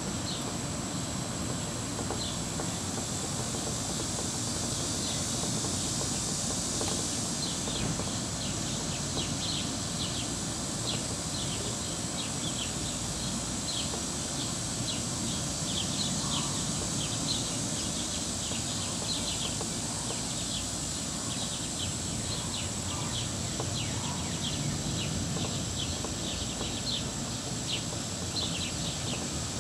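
Late-summer garden ambience: a steady, high-pitched insect drone with frequent short bird chirps over a low background rumble.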